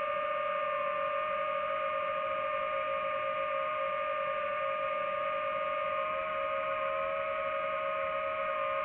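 DJI FPV drone's motors and propellers whining at one steady pitch, with overtones above it.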